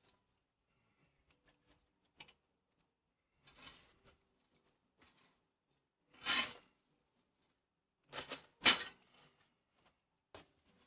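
Small pieces of firewood being set into a wood-fired oven, knocking and clattering against the coals and brick floor in about five short, separate knocks. The loudest two come about six and nine seconds in.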